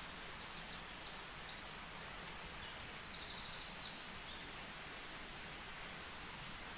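Faint woodland ambience: a steady hiss with a few short, high bird chirps and one brief trill in the first four seconds.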